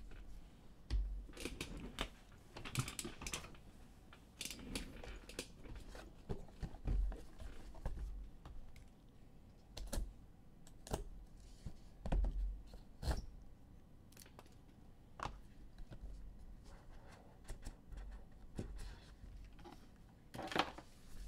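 Trading cards being handled: irregular light clicks, taps and rustles as a stack of cards is thumbed through, cards are laid down on the mat and set into a box.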